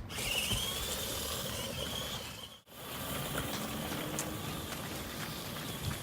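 Toy remote-control monster truck (New Bright Trail Buster) driving, its small electric motor giving a high whine over the steady noise of the wheels on the ground. The sound breaks off briefly about two and a half seconds in, then carries on.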